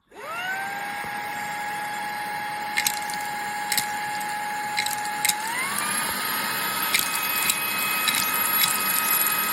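Fanttik Slim V8 Apex handheld vacuum's motor switched on, spinning up within half a second to a steady high whine. About five and a half seconds in the pitch steps up to a higher, faster whine. A few sharp ticks sound over the motor.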